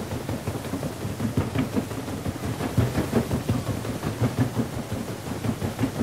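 Paddle steamer's paddle wheels thrashing the water: continuous deep churning and splashing.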